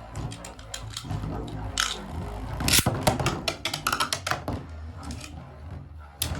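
Plastic Beyblade tops and stadium parts being handled: a quick run of clicks, knocks and short scrapes, loudest about three seconds in.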